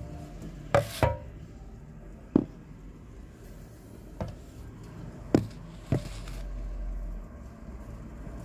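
Six or so sharp knocks at uneven intervals, two close together about a second in and the loudest ones near two and a half and five and a half seconds, over a low steady rumble.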